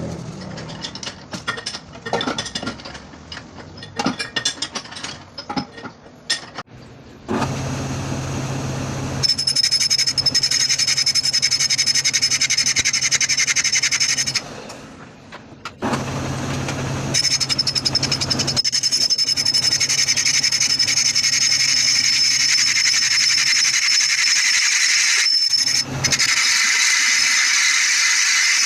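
Irregular clattering of metal parts being handled, then a motor-driven machine tool running with a steady hum and a high-pitched squeal that starts and stops twice.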